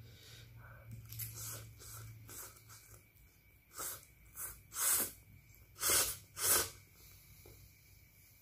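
Instant fried noodles slurped off chopsticks: a few soft slurps, then five loud, short sucking slurps between about four and seven seconds in.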